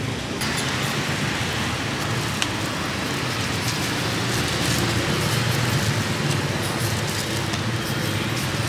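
Electric blender switched on about half a second in and running steadily, churning a fruit shake.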